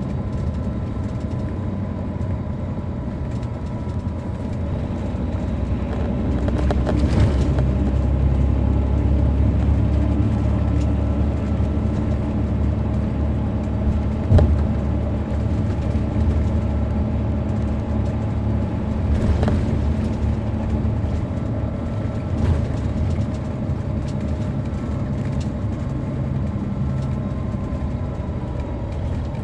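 On-board sound of a 2007 MCI D4500CL coach's Caterpillar C13 ACERT diesel engine running under way, heard from inside the bus. The engine grows louder about six seconds in, as if pulling harder, and a single sharp thump comes about fourteen seconds in.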